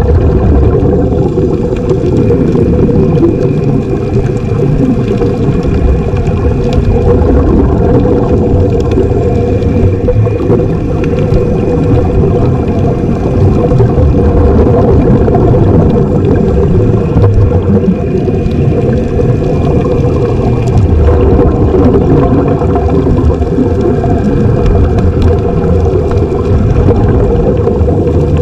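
Underwater noise during helmet diving: a loud, steady, muffled low rumble of water and pumped air around a submerged camera.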